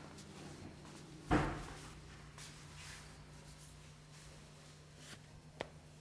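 A single dull thump about a second in, then a light click near the end, over a steady low hum: the barber's hands striking and working the shoulders during a barbershop massage.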